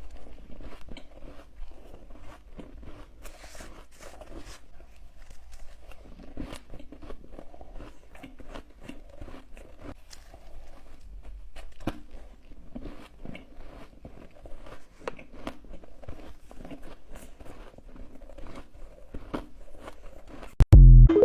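Hard ice being bitten and chewed close to the microphone: irregular, crisp cracks and crunches. A loud, low thump near the end.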